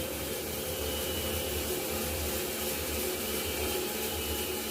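Sesame-processing machine at an oil mill running steadily: a constant motor hum with an even whir over it.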